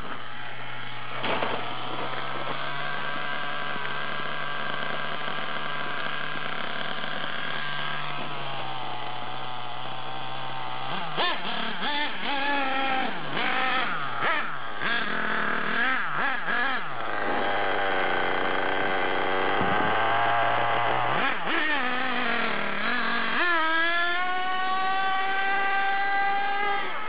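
Radio-controlled car's motor running with a steady pitch for several seconds, then revving up and down repeatedly as the throttle is worked, and climbing in pitch again near the end.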